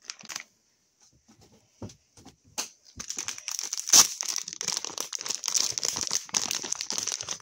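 Plastic packaging crinkling and tearing as a mystery sack is ripped open by hand. It starts as scattered crackles, then becomes dense from about three seconds in, with one sharp, loud rip about four seconds in.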